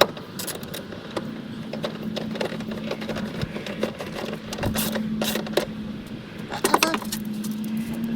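Irregular metallic clicks and rattles of hand tools and bolts being worked while the reservoir's mounting bolts go in, over a steady low hum that starts about a second in.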